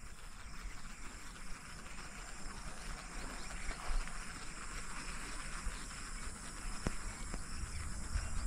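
Outdoor marsh ambience: a steady hiss of insects with a low, uneven rumble underneath and a couple of faint clicks.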